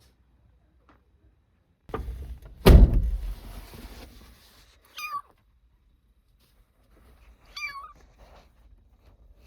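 A rustle and a loud thump about three seconds in, then a kitten gives two short, high-pitched meows, the first falling in pitch.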